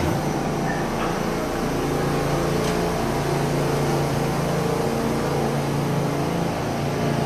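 NYC subway A-train cars standing beside the platform, giving off a loud, steady hum with several held low tones over a wash of noise.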